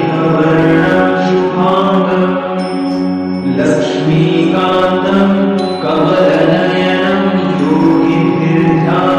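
Background music: a devotional Hindu mantra chanted to a melody, with a voice holding long notes over a steady accompaniment.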